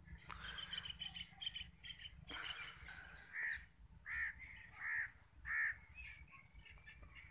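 A crow cawing, four calls in quick succession in the second half, over faint chirping of small birds. Two short bursts of rustling noise come in the first half.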